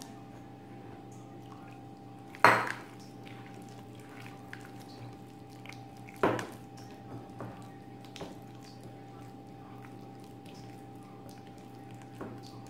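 A hand squishing and kneading thick, sticky bonda batter in a glass bowl. There are two sharp clinks against the glass, about 2.5 and 6 seconds in, and a few lighter ones later. A steady low hum runs underneath.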